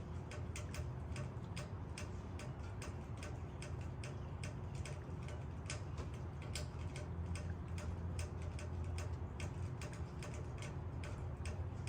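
Raindrops falling on leaves: irregular sharp ticks several times a second over a steady low rumble.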